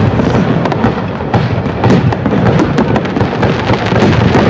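Aerial firework shells bursting in a dense, continuous barrage of bangs over a low rumble, many reports a second with no break.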